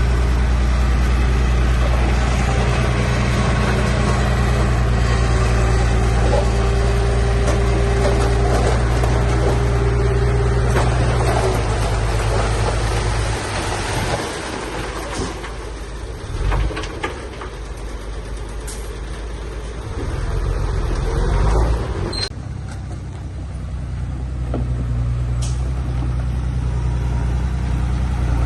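Heavy diesel engine of an earthmoving machine running steadily at a deep drone. About halfway through it drops away and becomes uneven, swells briefly later, then settles back to the steady drone near the end. A single sharp click comes shortly before it settles.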